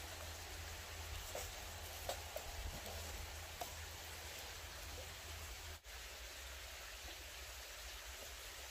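Sticks burning in a small titanium twig stove: faint scattered crackles over a steady soft hiss, with a brief break in the sound about six seconds in.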